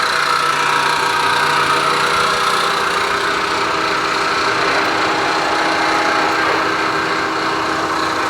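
GMC GT-26120 heavy-duty engine lathe running steadily, its headstock gearing and motor giving a steady mechanical hum and whine; about three seconds in, a low hum fades and a higher steady tone takes its place.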